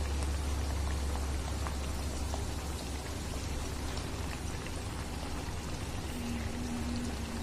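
Hot oil sizzling and crackling steadily around semolina golgappa puris deep-frying and puffing up in a kadai, with a steady low hum underneath.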